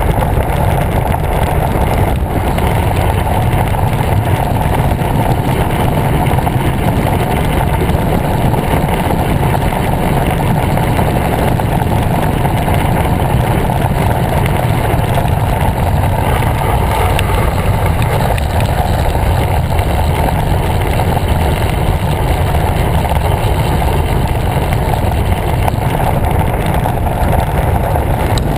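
Steady rush of wind across the microphone of a camera on a road bike riding along an asphalt road, a loud even noise heaviest in the low range.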